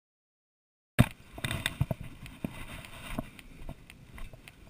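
Silence, then about a second in a sudden start of irregular knocks and rattles: carried gear and the camera mount jostling as they move along a concrete path.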